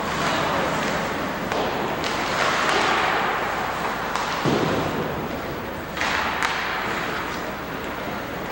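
Ice hockey play in a rink: skates scraping over a steady arena hubbub, with about half a dozen sharp knocks and thuds of sticks, puck and boards scattered through it.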